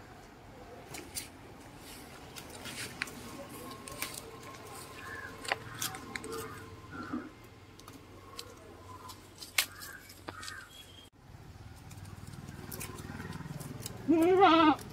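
Goats tearing and chewing Portia tree (poovarasu) leaves, with scattered crisp snaps and leaf rustles. A short, loud goat bleat near the end.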